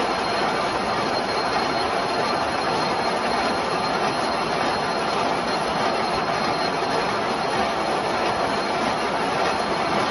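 Gear hobbing machine cutting teeth into a bronze worm wheel: a steady, even machining noise with a thin high whine.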